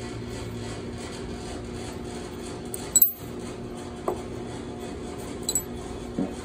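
A few light metallic clinks and taps as tools and valve parts are handled while the valves come out of a cylinder head, the sharpest clink about three seconds in, over a steady low hum.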